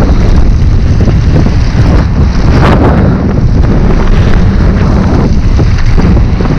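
Heavy wind buffeting on the microphone of a mountain bike's onboard camera during a fast downhill run. Under it, tyres crunch over a loose gravel berm trail, with scattered knocks and rattles from the bike over the bumps.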